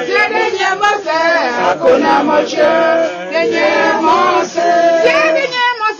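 Mbo/Bakossi choir singing together, mostly women's voices, with the sung pitches sliding up and down.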